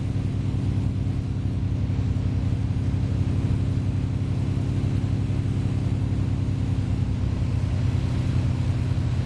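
Light aircraft's engines and propellers droning steadily, heard from inside the cabin, with a low pulsing hum.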